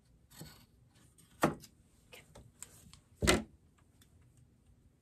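Scissors snipping through shirt fabric: a few short, sharp clicks and snips, with a louder, deeper knock about three seconds in.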